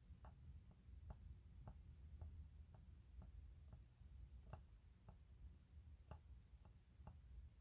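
Faint, soft mouth clicks about twice a second, made as a smoker pops out a run of cigarette smoke rings one after another, over near silence with a low hum.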